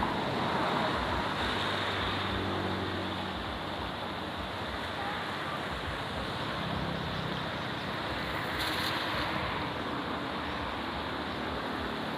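Steady rush of flowing river water, with wind buffeting the microphone.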